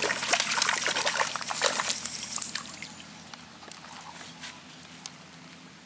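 Hooked catfish thrashing and splashing hard at the water's surface for the first two seconds or so. The splashing then dies down to light water sounds and a few drips as the fish is lifted out.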